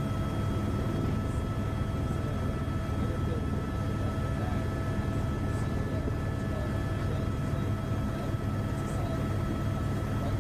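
Steady engine and cabin drone of an aircraft heard from on board in flight: a dense low rumble with a few steady whining tones over it.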